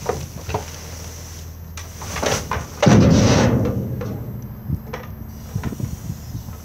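A plastic-wrapped silage bale set down by a hydraulic crane grapple into a steel roll-off container: a few metal knocks and scraping from the grapple, then a loud, low boom about three seconds in as the bale settles against the container's steel, dying away over about a second, followed by lighter knocks as the grapple lets go. An engine runs steadily underneath.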